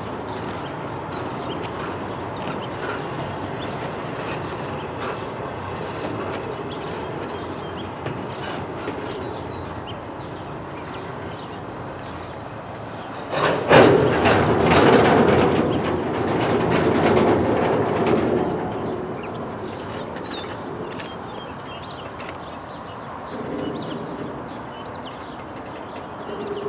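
Empty double-stack intermodal well cars of a freight train rolling past, their steel wheels clattering steadily on the rails. About halfway through there is a louder stretch of several seconds of clanking and rumbling, then the steady rolling resumes.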